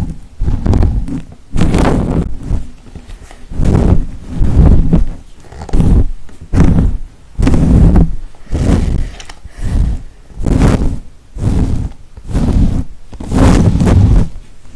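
Close-miked ASMR trigger: repeated rubbing strokes right at the microphone, about one a second, each a loud, full swish lasting about half a second.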